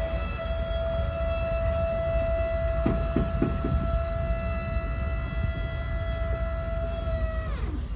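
Electric hydraulic pump motor of a tuck-under truck liftgate running as the platform unfolds and lowers: a steady whine that spins up at the start and winds down and stops near the end. A few clicks come from the mechanism about three seconds in, over a steady low rumble.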